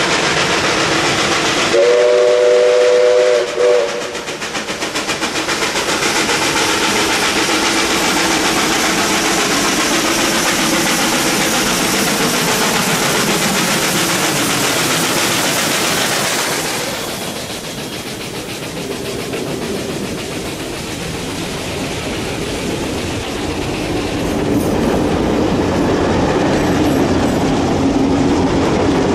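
NSW D59-class 2-8-2 steam locomotive 5917 sounds its whistle in one long blast and a short one about two seconds in. Its exhaust then beats quickly and loudly as it hauls the passenger train past under power. After that the carriages roll by with wheels clicking over the rail joints.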